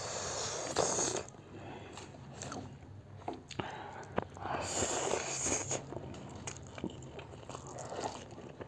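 Two people slurping instant noodles and chewing, with two longer slurps, one at the start and one about five seconds in, and scattered small clicks between them.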